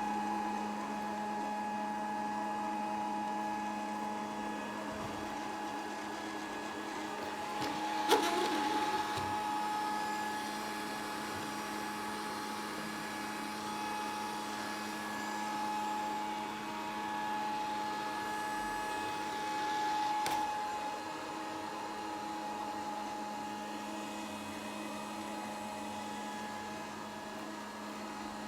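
Grundig VCR 2131 robot vacuum running with a steady hum and whine. There is a sharp knock about eight seconds in and a lighter one near twenty seconds.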